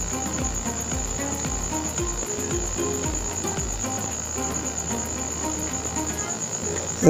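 Steady, high-pitched trilling of a cricket.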